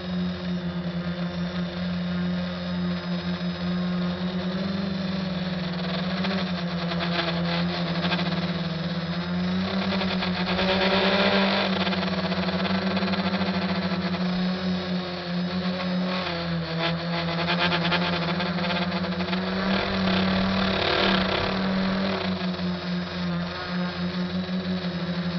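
SK450 quadcopter's four motors and propellers droning steadily, heard close from its onboard camera. The drone swells louder and rises in pitch around ten seconds in and again about twenty seconds in, as the throttle changes.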